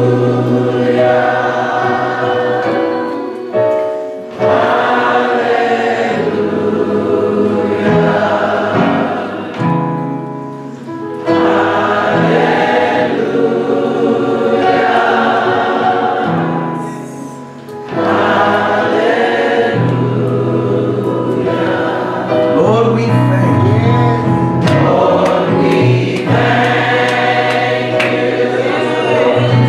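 Gospel choir singing a worship song together, with instrumental backing of held low bass notes. The song goes in long phrases that ease off briefly about four, ten and eighteen seconds in.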